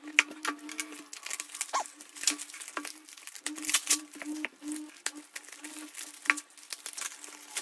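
Plastic parcel wrapping and yellow packing tape being crinkled, peeled and torn open by hand: a run of crackles and rustles. A low hum keeps dropping in and out underneath.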